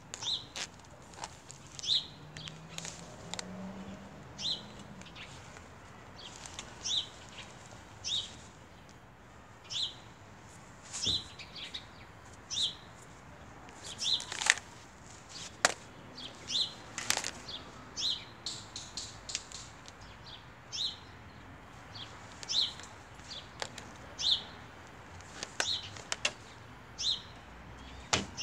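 Short high chirps repeating about once a second, with a few sharp clicks in between.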